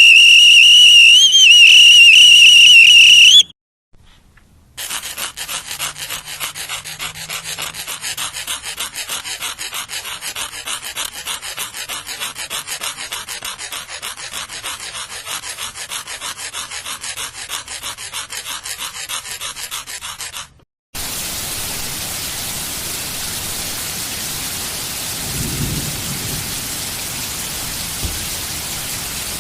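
Three separate sound effects in a row. First a loud shrill whistle-like tone that wavers slightly and cuts off after about three and a half seconds. After a short gap comes a long run of fast, even rattling clicks, and from about twenty seconds in a steady hiss like radio static or heavy rain.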